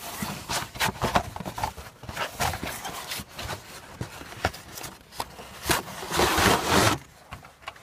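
Cardboard box being handled and a new cabin air filter pulled out of it: a string of short scrapes and knocks of cardboard, with a longer, louder rustling scrape about six seconds in.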